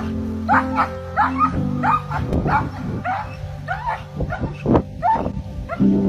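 A dog barking over and over, about two short barks a second that each rise in pitch, with background music underneath.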